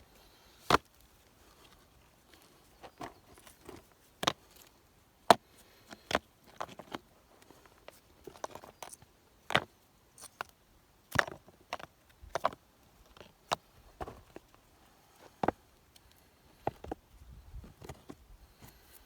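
Irregular sharp knocks and lighter taps of wood being worked by hand, about a dozen strong strikes spaced roughly a second apart.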